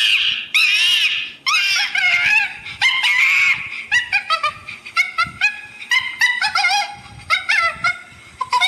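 An animal calling: harsh, rasping cries for about the first second and a half, then a quick series of short pitched calls, several a second, many sliding up or down in pitch.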